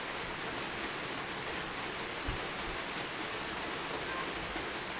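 Steady rain falling, a dense even hiss dotted with the ticks of individual drops striking nearby surfaces.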